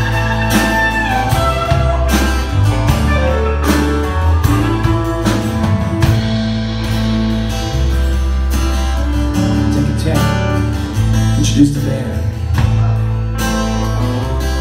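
Live country band playing an instrumental section: electric guitars over acoustic guitar strumming, bass and a steady drum beat.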